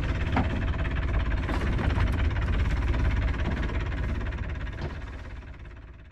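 Yacht's inboard diesel engine running steadily at idle, fading away over the last couple of seconds.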